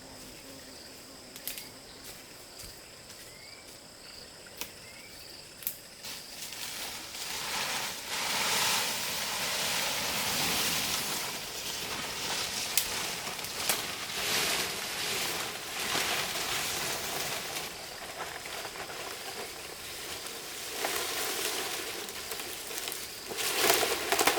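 Insects chirring steadily with a few sharp clicks. From about six seconds in, loud rustling and crackling with scattered clicks takes over, the sound of something being handled or worked.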